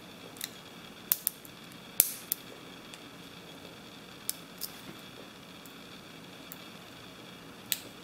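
Small sharp metallic clicks of a lock pick and tension wrench working the pins of a pin-tumbler padlock: about eight scattered clicks, the loudest about two seconds in and another shortly before the end.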